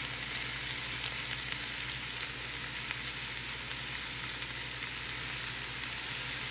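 Squash frying in a pan with sautéed garlic and onion: a steady sizzle with fine crackles and one sharper pop about a second in.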